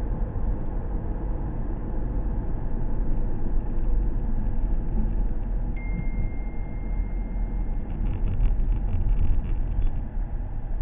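Steady low road and engine rumble heard from inside a moving vehicle. About six seconds in, a thin high beep starts and holds for about two seconds, followed by faint rapid clicking.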